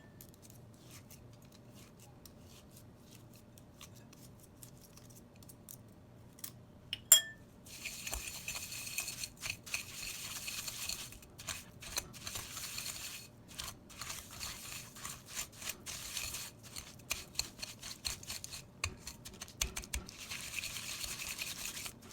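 Butter and sugar being creamed by hand in a mixing bowl: a utensil scraping and stirring against the bowl in quick, uneven strokes. The scraping starts about eight seconds in, just after a single sharp click, and goes on after a quiet start.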